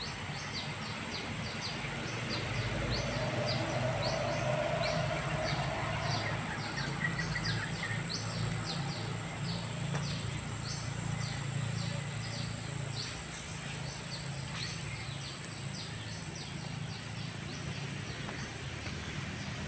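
Outdoor insect and bird sounds: a steady high insect drone, with short high chirps repeating two or three times a second, over a low steady hum.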